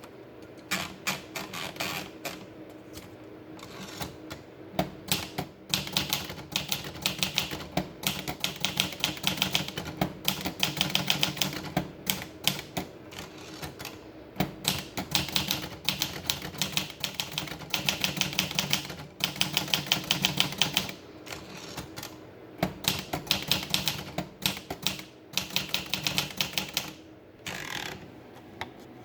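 Olivetti Lettera DL typewriter being typed on: runs of rapid key strikes, several a second, broken by short pauses.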